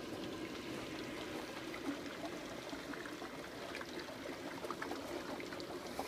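Homemade HHO (oxyhydrogen) heater running: a steady, watery fizzing hiss with faint scattered crackles.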